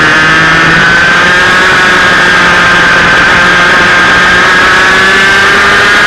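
Two-stroke 125cc TAG kart engine running at high revs close to the microphone. Its pitch dips slightly through the middle and climbs again near the end as the kart comes back on the throttle.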